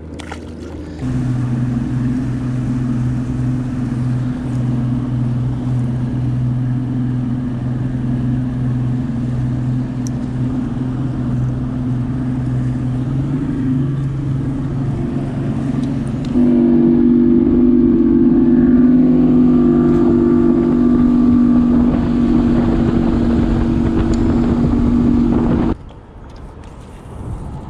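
Boat's outboard motor running at a steady speed, a constant low hum. About halfway through it steps up in pitch and gets louder, and it stops abruptly near the end.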